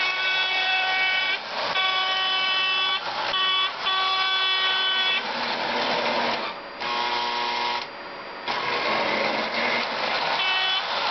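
Lionel 218 Alco diesel toy train horn sounding in a long, long, short, long pattern, then a lower-pitched blast, and starting again near the end, over the steady running noise of the locomotive rolling along the metal track.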